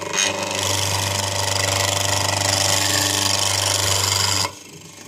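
Motor-driven nibbler punching through a double-thickness leather sole: a loud, rapid, even clatter over the motor's hum. It stops abruptly about four and a half seconds in.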